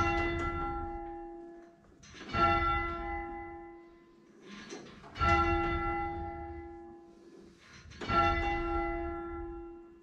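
Second bell of a six-bell tower rung full circle on its rope, striking four times about every two and a half to three seconds, handstroke and backstroke alternating. Each stroke rings out and dies away before the next. The strikes are being listened to against the Simbell simulator's bell sound, delayed 260 ms, to check that the two strike together.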